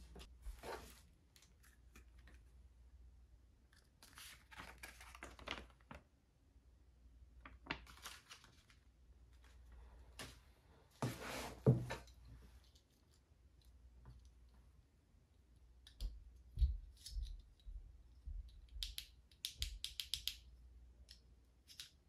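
Packaging being unwrapped and handled: several bursts of rustling and tearing, the loudest about halfway through, then a run of light clicks and taps, quickest near the end.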